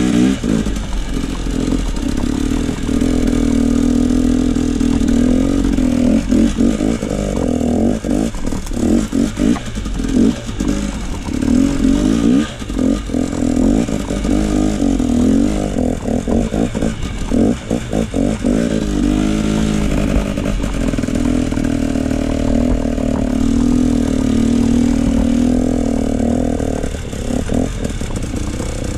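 KTM enduro motorcycle ridden along a trail, its engine note rising and falling with the throttle. Through the middle stretch the note turns choppy, broken by quick throttle on-off and short knocks, then smooths out again near the end.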